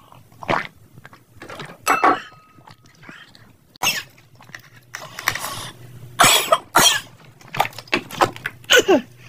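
Close-miked eating sounds: spicy mala rosé tteokbokki being slurped and chewed in a run of short, wet bursts, with a cough from the heat of the sauce.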